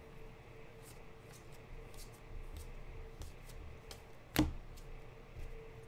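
Baseball trading cards being flipped through by hand: faint ticks and slides of card edges, with one sharp louder click about four and a half seconds in.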